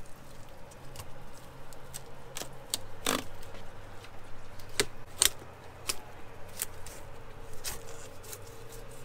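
Fillet knife cutting a golden tilefish's fillet off its backbone and rib bones: scattered sharp clicks and scrapes, over a steady low hum.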